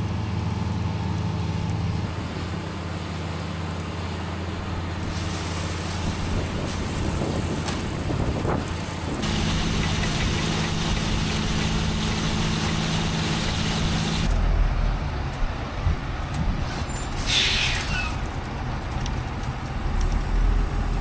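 Truck engine running steadily, its pitch shifting a couple of times, with a short hiss of air about three-quarters of the way through.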